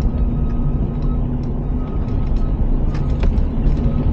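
Mitsubishi L200 pickup driving slowly over a rough dirt track, heard from inside the cab: a steady engine and tyre rumble with scattered clicks and knocks from the bumpy surface.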